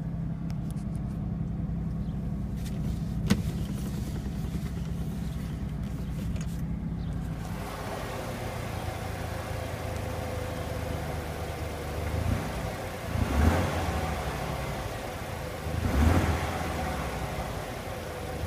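Ford 4.9-litre (300) straight-six engine of a 1995 F-150 idling just after a cold start, having sat for two months on a jump-started battery. A sharp click sounds about three seconds in, and the engine swells briefly three or four times in the second half, as with short blips of the throttle.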